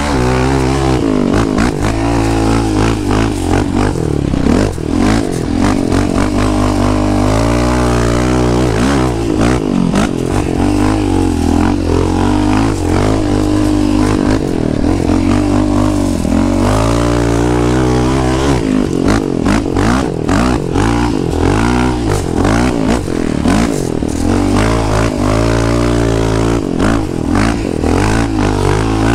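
Yamaha Raptor 700R's single-cylinder four-stroke engine revving and easing off again and again as the quad climbs and turns through loose sand, its pitch rising and falling throughout.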